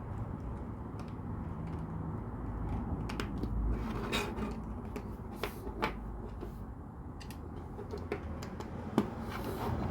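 Plastic LEGO pieces being handled and pressed together: scattered light clicks and small knocks, a few each second at most, over a low steady background rumble.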